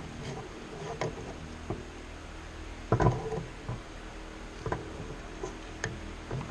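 Tools and parts being handled during the work: scattered clicks and knocks over a steady low hum, the loudest cluster about three seconds in.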